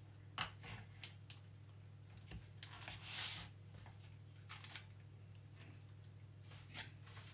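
Flat knife scraping and tapping against a foil baking tray while spreading thick cake batter: a handful of short scrapes and clicks, with one longer, louder scrape about three seconds in, over a low steady hum.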